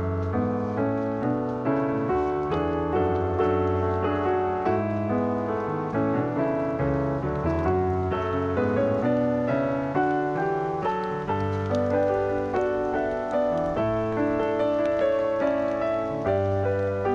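Background piano music: a calm melody with notes struck at an even pace over sustained chords.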